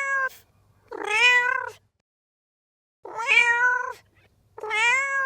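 Domestic cat meowing over and over: the tail of one meow, then three separate meows, each just under a second long, with gaps of silence between them and a longer pause in the middle.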